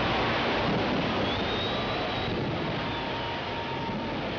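A large fireworks barrage going off continuously, the many bangs and crackles blending into a steady rumbling noise, with a thin whistle rising about a second in.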